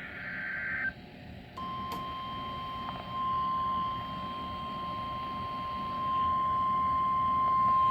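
NOAA Weather Radio broadcast: the end of a SAME digital header burst, a warbling data screech that cuts off about a second in. After a short gap, the steady 1050 Hz weather radio warning alarm tone starts and holds, over low receiver hiss.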